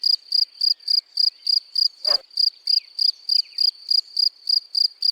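European field cricket singing its calling song: a steady run of evenly spaced high chirps, about three and a half a second. A brief dull knock sounds about two seconds in.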